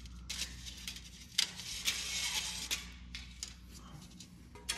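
Aluminum mini-blind slats and cord being handled: scattered light clicks and rustles at irregular times.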